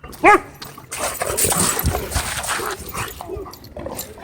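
A dog gives one loud, short yelp, its pitch rising and falling, then dogs keep up a scuffle of rough noises and whines while wrestling.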